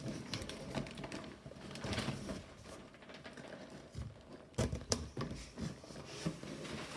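Corrugated cardboard shipping box being handled, its flaps rustling and scraping, with a handful of sharp knocks clustered a little past the middle as the box inside is moved.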